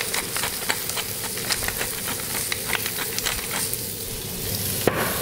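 Clarified butter and olive oil sizzling in a hot frying pan with morels, green asparagus and onions, with many short sharp crackles and pops. A single knock about five seconds in.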